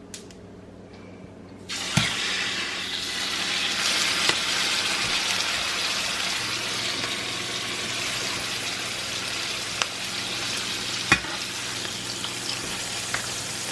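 Raw chicken thighs going into hot oil in a skillet, starting suddenly about a second and a half in and then sizzling steadily. A few sharp clicks sound over the frying.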